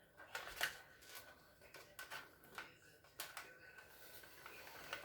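Faint handling noise: a string of light clicks and rustles as small parts are handled during a refrigerator repair, over a faint steady high hum.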